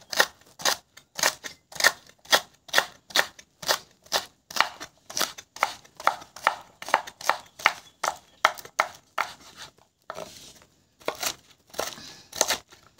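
Large kitchen knife slicing a young torch ginger stem into rounds on a wooden cutting board: a steady run of crisp cuts knocking on the board about three times a second, with a pause of about a second near the end.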